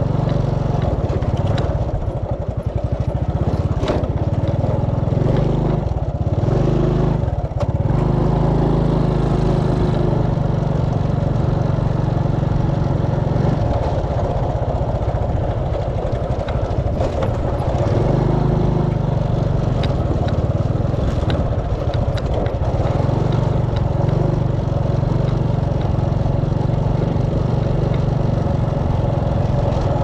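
Small step-through motorbike engine running steadily while riding over grassy ground, briefly dipping twice about six to seven seconds in.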